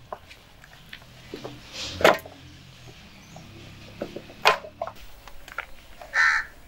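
Handfuls of raw mutton being dropped into stainless-steel trays, with sharp clatters about two and four and a half seconds in and soft handling noises between. A crow caws near the end.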